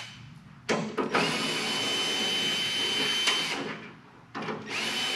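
A handheld cordless drill-driver running in short bursts: a brief blip about half a second in, then a steady whine that spins up and runs for about two seconds, stops, and spins up again for about a second near the end.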